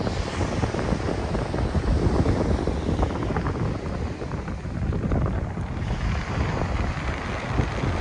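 Wind buffeting a phone's microphone: a low rumble that rises and falls in gusts.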